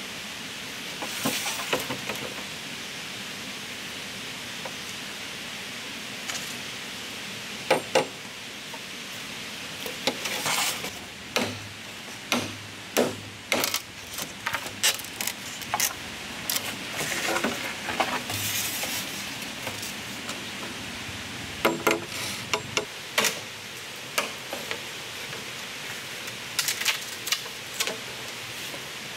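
Irregular knocks, clicks and scrapes, some in quick runs, over a steady background hiss.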